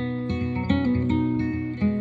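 Song music carried by acoustic guitar, strummed and picked, in a gap between sung lines.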